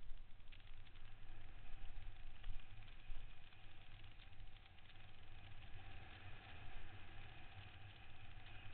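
Wind buffeting a helmet-mounted camera's microphone, mixed with the tyre rumble and rattle of a downhill mountain bike running fast over a loose gravel dirt trail, rising and falling in loudness with the terrain.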